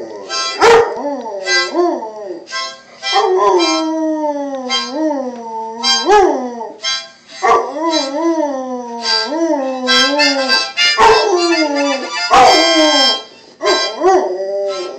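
A dog howling along to a harmonica: wavering howls that rise and fall in pitch, broken every second or so, over the harmonica's steady held chords.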